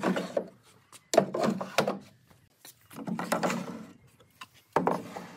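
Small wooden drawers of a pallet-wood cabinet sliding open and shut, wood rubbing on wood in four separate strokes.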